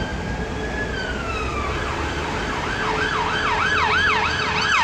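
Emergency vehicle siren: a slow wail that rises and falls, then about two seconds in switches to a fast yelp of about three sweeps a second, growing a little louder.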